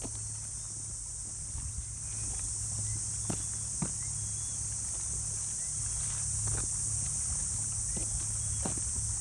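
Footsteps on a concrete pier, a few irregular scuffs and knocks, over a steady high-pitched drone of insects.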